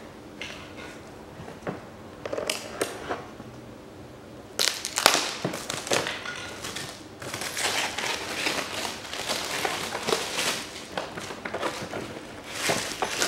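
Clear plastic shrink wrap crinkling and rustling on a hard plastic tool case as it is handled and turned over, with light knocks of the case; the crinkling gets denser and louder from about four and a half seconds in.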